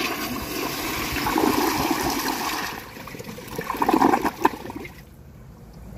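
Kohler Elliston Revolution 360 toilet flushing with the handle held down: a rush of water into the bowl for about three seconds, then a second, louder surge about four seconds in that dies away a second later.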